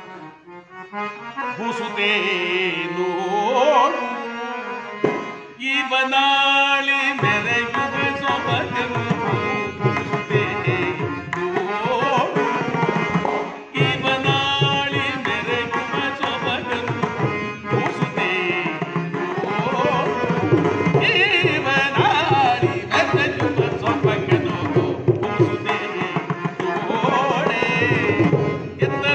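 A singer performs a Kannada company-theatre song (ranga geethe), accompanied by harmonium. The tabla comes in about seven seconds in and keeps a steady beat under the voice.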